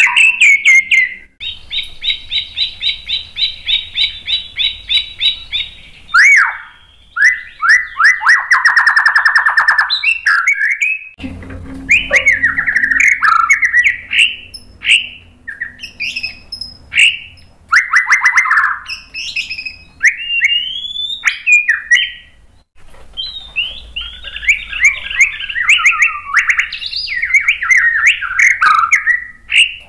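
White-rumped shama (murai batu) singing loudly: a varied song of fast trills, whistled slurs, sharp chips and buzzy rattles, with short breaks between phrases.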